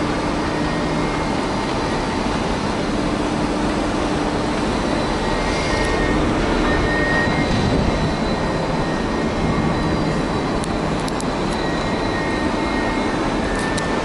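Steady, loud machinery drone of a crane working a 12 m³ remote-control clamshell grab in coal as the grab closes and is hoisted. A few faint steady tones run through it, and there are a few faint clicks near the end.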